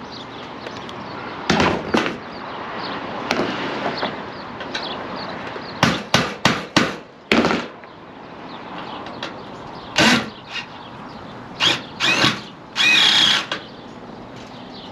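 Power drill run in a string of short bursts, with one longer run near the end, over a steady background hiss.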